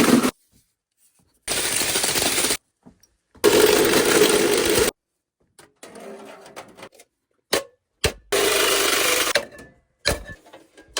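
A handheld power tool running in four short bursts of about a second each, each starting and stopping abruptly, with lighter clattering between the bursts.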